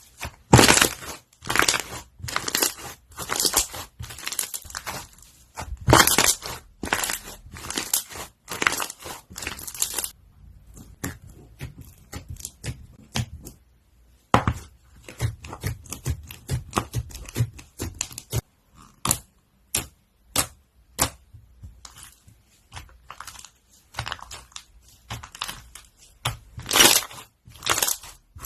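Crunchy slime being squeezed and worked by hand, giving off crackling and popping. The crackle comes in dense bursts for roughly the first third, thins to scattered pops and clicks, and comes back in a louder burst near the end.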